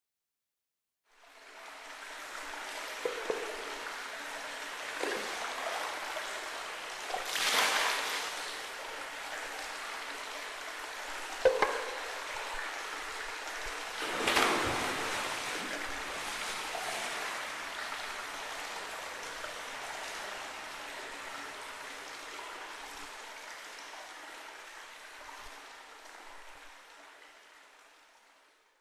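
Steady rush of running water, fading in and out, with two brief louder surges and a few light knocks.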